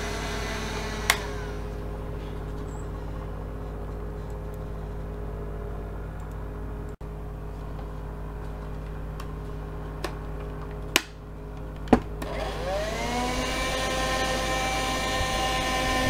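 Dirt Devil Scorpion cordless hand vacuum: its motor whine stops with a click about a second in and a low steady hum is left; near the end, after two sharp clicks, it is switched back on, the whine rising in pitch and settling to a steady run.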